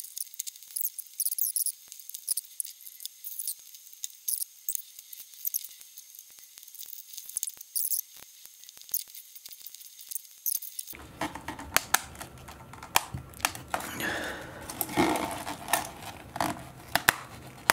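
Cured carbon fibre and resin part being handled and prised off its plastic mould by gloved hands: irregular sharp clicks and crackles, growing fuller and busier after about eleven seconds.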